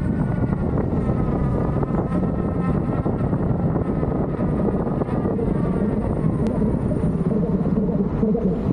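Wind rushing and buffeting over the microphone of a camera carried on a moving electric unicycle, with a faint wavering whine above it.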